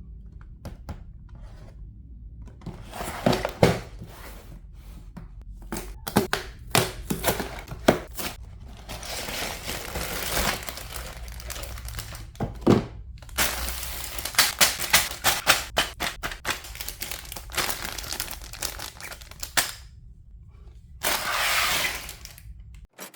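Plastic LEGO pieces being handled and clicked together: irregular sharp clicks and knocks that come thickest in the middle stretch, with plastic crinkling and rustling in between. A low steady hum sits underneath and cuts off just before the end.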